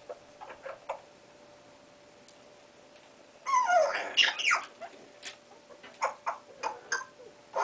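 Young Congo African grey parrot vocalising: a few short clicks in the first second, then a burst of falling, squawky glides about three and a half seconds in, followed by a run of short clicks and chirps.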